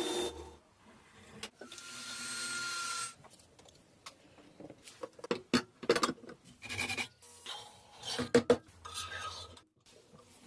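Restoration work on the truck: a steady rasping stroke of about a second and a half, then a run of irregular scrapes and knocks.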